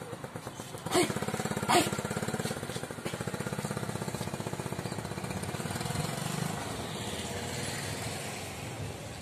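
Small commuter motorcycle engine pulling away, with two short loud blips about a second in, then running at a steady pace and fading slightly as the bike rides off.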